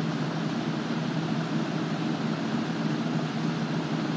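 Air conditioner running with a steady low hum and hiss.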